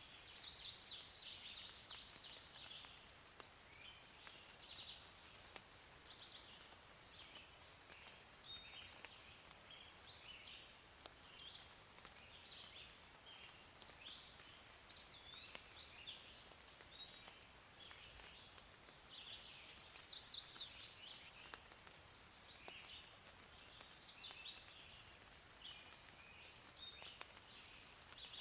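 Birds chirping and calling continuously, with two louder rapid trills, one at the very start and one about two-thirds of the way through, over a faint steady hiss.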